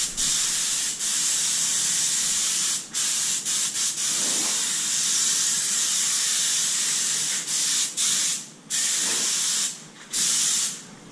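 Cup spray gun spraying ceramic coating: a steady hiss in long bursts of one to a few seconds, separated by brief releases of the trigger, stopping near the end.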